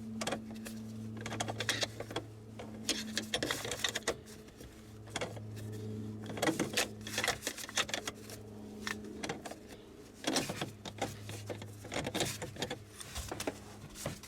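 Bursts of rapid metal clicking from hand tools tightening a car battery's hold-down bracket, over a steady low hum.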